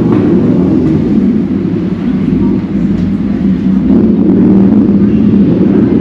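Steady, loud rumble of wind buffeting the camera's microphone while walking.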